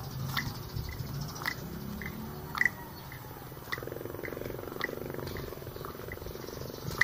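Footsteps of someone walking on pavement, a sharp tap about once a second, with a steady low hum joining about four seconds in.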